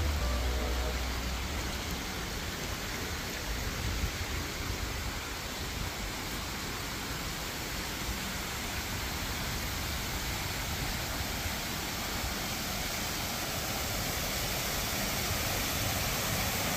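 Steady rushing and splashing of water from a cascading garden waterfall falling into a pool.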